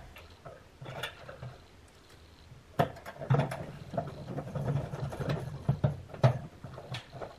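Nut driver tightening a terminal nut on rice cooker wiring: irregular metallic clicks and knocks of the tool and terminals against the sheet-metal base, sparse at first and busier from about three seconds in.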